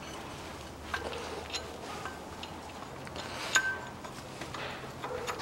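A few scattered metallic clicks and clinks of a hand tool on the engine's freshly fitted pulley bolts as they are tightened, one about three and a half seconds in ringing briefly.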